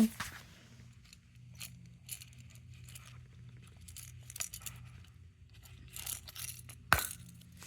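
Fishing lures and tackle being handled and sorted through: scattered small clicks and clinks of hard plastic and metal, with one sharper knock about seven seconds in.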